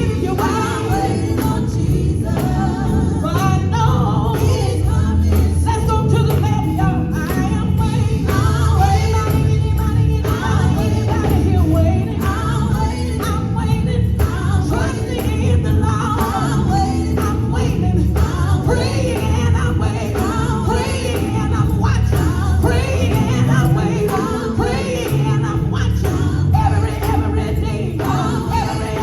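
Live gospel music: voices singing together over a full band with heavy bass and drums.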